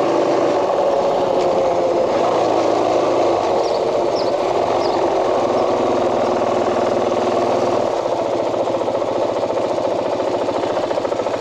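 KTM 500 dual-sport motorcycle's single-cylinder four-stroke engine running at a steady cruise, heard from the handlebars with wind rush. The engine note changes about eight seconds in as the bike slows.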